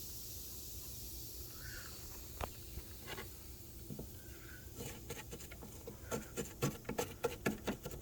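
Faint hiss of white vinegar fizzing on baking soda, then from about five seconds in a toothbrush scrubbing the gooey oil-and-flour residue in quick scratchy strokes, several a second.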